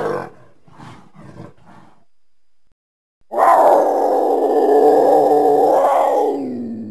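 Troodon creature sound effect: a growl tails off into a few faint snorts, then after a brief silence comes one long, loud roar of about three seconds that drops in pitch as it ends.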